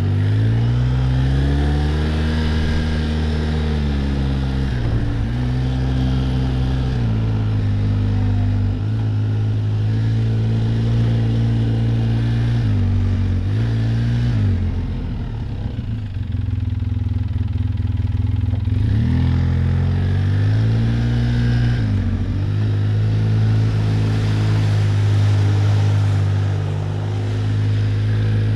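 Quad bike (ATV) engine running on a trail under changing throttle, its revs rising and falling several times, with a lower, slightly quieter stretch about halfway through.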